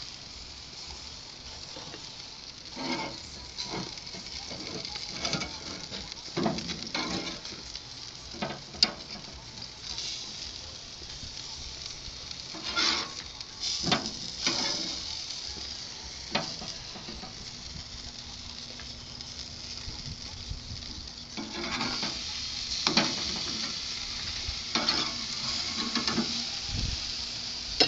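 Burger patties sizzling on a charcoal grill: a steady high hiss, with short, louder crackles and knocks now and then.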